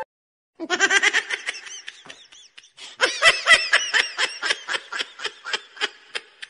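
High-pitched laughter in two rolling bursts of quick ha-ha pulses. The first starts about half a second in, and the second, longer one starts about three seconds in.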